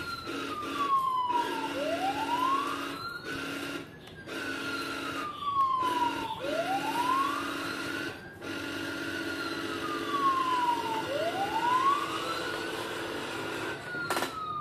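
Huina 1561 RC fire truck's built-in electronic siren wailing: a slow rise and fall, about one cycle every four and a half seconds, over a steady electric whine.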